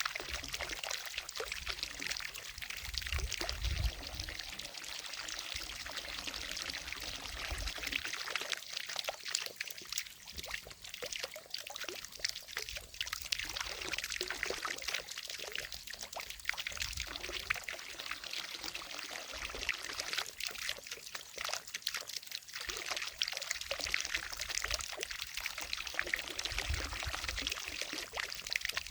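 Water from a fountain falling and splashing steadily into a lake, a continuous pouring sound with a low rumble coming and going underneath.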